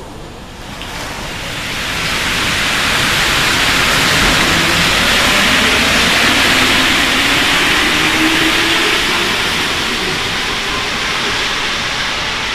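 RATP MP73 rubber-tyred Métro train pulling out of the station and running past, a steady tyre hiss that builds over the first two seconds and eases off near the end, with a faint rising motor hum underneath.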